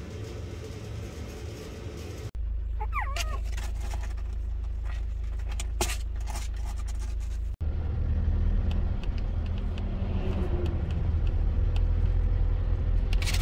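Steady low rumble of a moving car, heard from inside the cabin. A brief high squeak comes about three seconds in.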